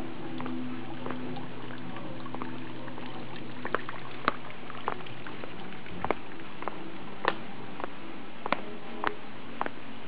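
Water dripping and trickling, with irregular drops plinking into water, over the low hum of a Buddhist temple bell fading away.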